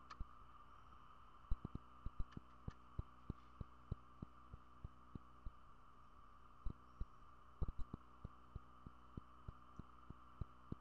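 Steady electrical hum with irregular low thumps and clicks, a few a second.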